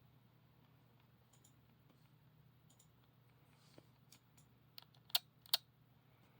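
Faint scattered clicks and taps over a low steady hum, with two sharper clicks in quick succession near the end.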